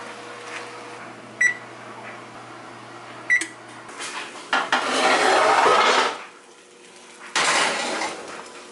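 Cast iron skillet and oven: two sharp ringing metal clinks, then a long rattling scrape about halfway through and a shorter one near the end as the skillet goes onto the oven's wire rack.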